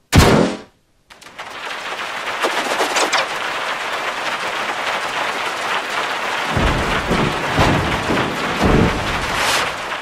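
Heavily distorted cartoon crowd sneezing and hiccupping, run through the G-Major meme effect chain of pitch-shift and distortion. One short loud blast is followed by a brief gap, then a long harsh crackling wash, with deeper pulses in its last few seconds.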